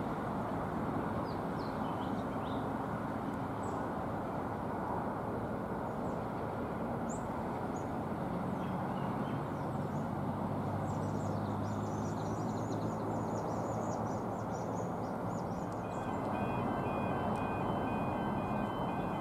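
Steady low rumble of a Comeng electric suburban train in the distance, with small birds chirping over it through the first dozen seconds. Near the end, faint high tones pulse on and off.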